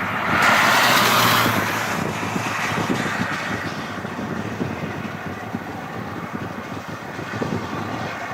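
Road and wind noise of a moving vehicle, with a louder rush of noise about half a second in that fades away over the next couple of seconds.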